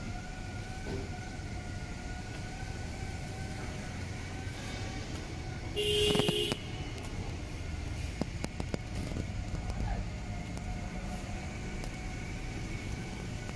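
Idling Isuzu diesel engine of a garbage compactor truck: a steady low rumble with a constant whine over it. About six seconds in comes one short, loud tone with a hiss, and a few light clicks follow.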